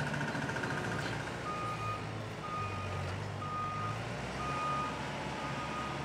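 A vehicle's reversing alarm beeping on one pitch, a short beep about once a second, starting about a second and a half in. Under it runs a low engine rumble and general site noise.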